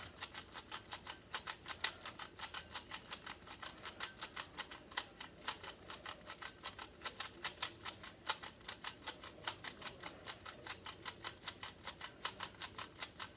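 Rubik's cube layers being turned over and over, the plastic pieces giving a rapid, steady run of clicks, several a second.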